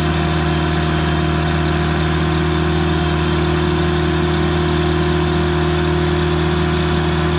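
Heavy-equipment diesel engine running at a steady, unchanging speed, with a constant low hum.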